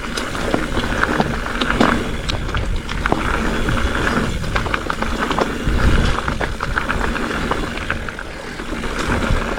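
Specialized Fuse hardtail mountain bike riding down a dirt singletrack: tyres rolling over the trail, with chain and frame clattering over bumps and wind rumbling on the camera microphone.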